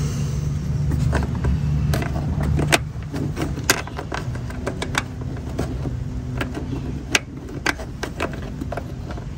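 Plastic interior trim panels of a Toyota Prado 150 being pressed and knocked back into place by hand, with irregular sharp clicks and knocks as the plastic clips seat, over a steady low hum.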